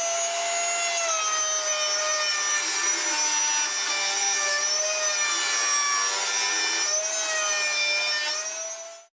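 Table-mounted router spinning a round-over bit and cutting the corners of a square wooden strip as it is fed along the fence: a steady high whine with the hiss of wood being cut. The whine dips slightly in pitch through the middle and rises again, then the sound cuts off abruptly near the end.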